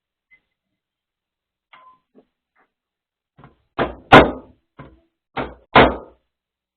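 A few faint taps, then several sharp knocks, mostly in close pairs, starting a little past halfway. The loudest pair comes just after the middle, each knock dying away quickly.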